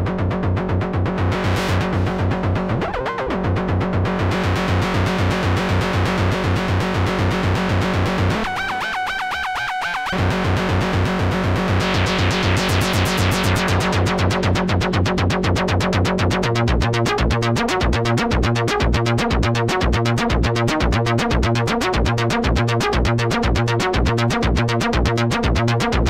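GForce Oberheim OB-X software synthesizer playing a preset: a rhythmic, pulsing synth pattern. The bass drops out for about a second and a half near nine seconds in, the sound brightens around twelve seconds in, and from about sixteen seconds in the pulse becomes choppier.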